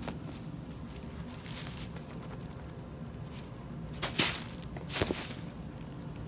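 Crumpled tissue paper rustling and crinkling as a cat swats and pounces in it, with two short, louder crinkles about four and five seconds in. A steady low hum runs underneath.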